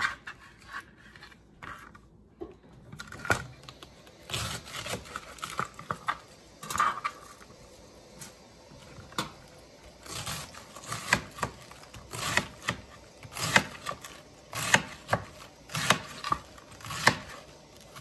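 Kitchen knife slicing through a head of cabbage onto a cutting board: crisp cuts, scattered at first, then a steady run of about one or two a second.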